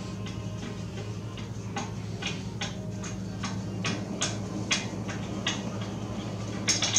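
Hand ratchet clicking as a brake caliper bolt is backed out, sharp single clicks about two a second, over a steady low hum.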